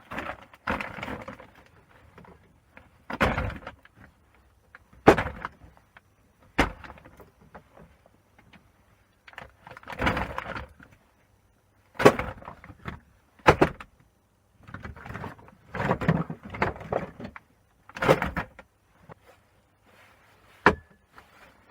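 Scrap plugs being broken apart by hand to get at their brass: irregular sharp cracks and knocks every second or two, with short bouts of scraping and rattling between.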